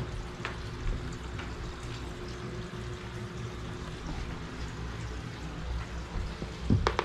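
Basset hound puppy gnawing and licking at a bone held in its paws: soft wet chewing with a few faint clicks, and a couple of sharper clicks near the end.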